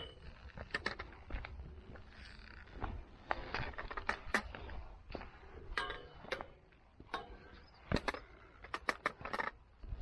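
Hikers' footsteps on a rocky mountain trail: irregular sharp steps, scuffs and clicks on rock and grit, a couple of strides a second, some steps louder than others.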